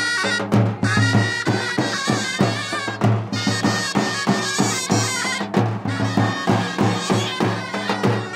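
Kurdish folk dance music: a reedy, bagpipe-like wind melody wavering over a low drone, with a steady drum beat.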